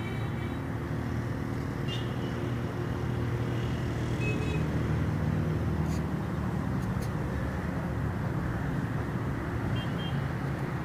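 Steady low rumble of motor-vehicle traffic on the road below, growing a little louder mid-way, with a few faint short high-pitched tones.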